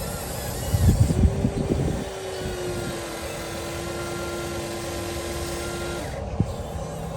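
Small electric motor of an RC construction toy whining steadily, slightly falling in pitch, then cutting off abruptly near the end. A burst of clattering knocks comes about a second in, and a single knock follows after the motor stops.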